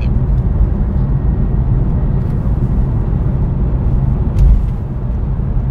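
Steady low road and engine rumble heard inside a moving car's cabin, with a brief low thump about four and a half seconds in.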